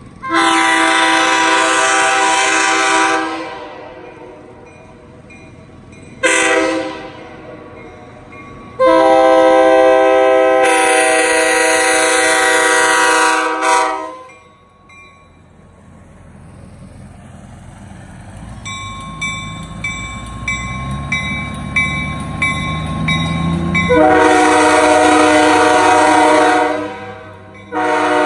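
Nathan Airchime K5H five-chime locomotive air horn, all its bells sand cast, sounding a chord in separate blasts: a long one, a short one and a longer one. After a pause of about ten seconds, during which a vehicle passes close by, it sounds another long blast, and a further blast begins right at the end.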